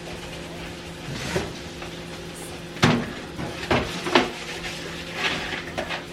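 Kitchen clatter: a few sharp knocks and clunks, the loudest about three and four seconds in, typical of cupboard doors and dishes being handled, over a steady low hum.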